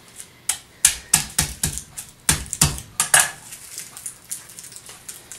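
Quick run of sharp knocks and clicks on a wooden end-grain cutting board as a head of garlic is handled and broken into cloves, about a dozen in the first three seconds. After that comes only faint crackling of dry garlic skin.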